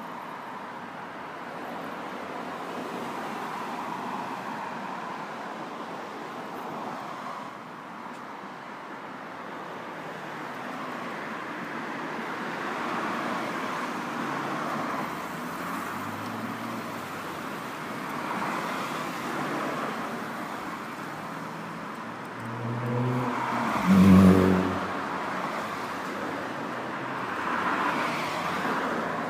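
Street traffic: a steady hum of motor traffic and street bustle, with a vehicle passing close and loud about twenty-four seconds in, its low engine drone briefly the loudest sound.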